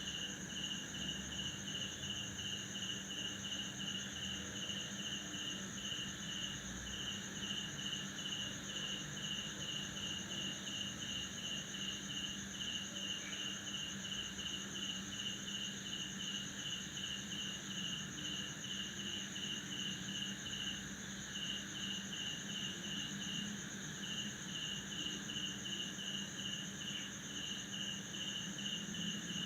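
Night chorus of crickets chirping. One cricket repeats short chirps at about two or three a second and drops out briefly twice about two-thirds of the way through, over a steady high-pitched trill from others. A steady low hum runs underneath.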